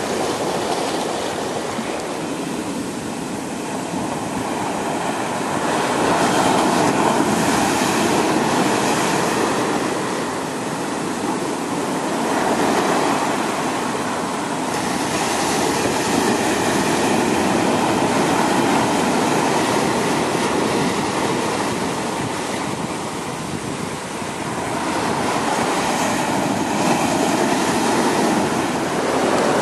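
Sea surf breaking and washing in over rocks and up a sand beach, a steady rush of water that swells and ebbs every few seconds as each wave comes in.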